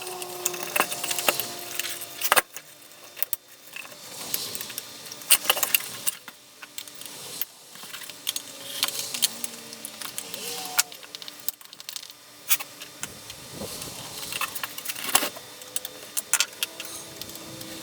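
Small metal hand tools and parts clinking and clicking against each other, in irregular sharp clicks with short pauses between them.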